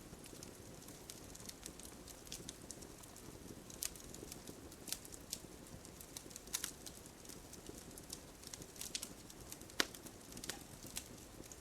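Campfire burning: a low, steady rush of flame with irregular sharp crackles and pops of burning wood. The loudest pop comes near the end.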